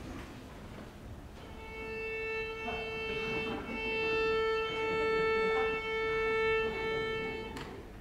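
A violin holding one long, steady bowed note for about six seconds, with a couple of slight breaks along the way.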